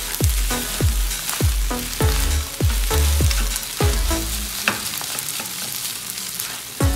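Fried rice sizzling in a nonstick frying pan as it is stirred and tossed with a wooden spatula. It plays under background music with a steady thumping beat, which drops out for the last couple of seconds.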